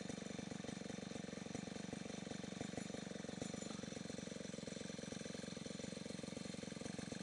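Stihl 070 two-stroke chainsaw idling steadily, with a fast, even pulse.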